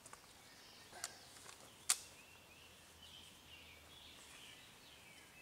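Two sharp clicks, the second near the middle and the loudest sound here, then faint wavering chirps of songbirds in the woods.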